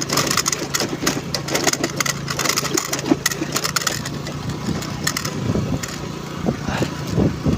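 Honda Navi's small single-cylinder engine running under load on a rough dirt track, with many short knocks and rattles throughout.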